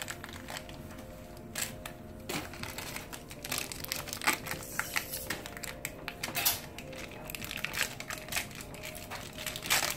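Packaging crinkling and rustling as it is torn open and handled by hand: a run of irregular small crackles.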